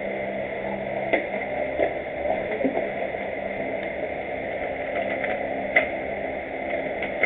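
Steady hum and hiss of a small room, with a few light clicks and knocks as gear is handled in an open case.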